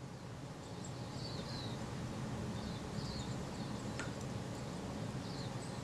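Quiet room tone with a low hum while small metal lens parts are handled, with one sharp little tick about four seconds in and a few faint high chirps in the background.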